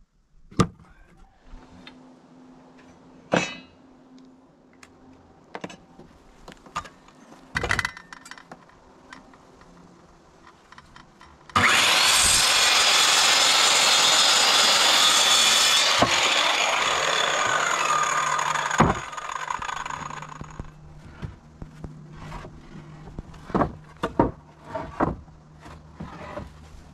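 Corded circular saw cutting through a wooden board: it starts suddenly, runs loud for about four seconds, then drops and winds down. Scattered knocks and clatter come before and after the cut.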